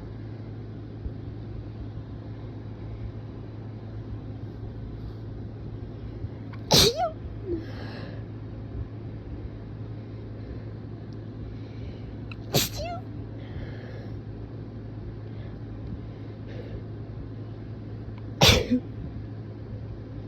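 A person sneezing hard three times, about six seconds apart, each sneeze sudden and loud with a fainter sound just after it. The sneezes are strong enough to make the throat hurt.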